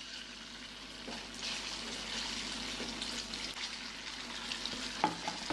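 Food frying in hot olive oil in a pan: a steady crackling sizzle that grows louder about a second and a half in, with a couple of light clicks near the end.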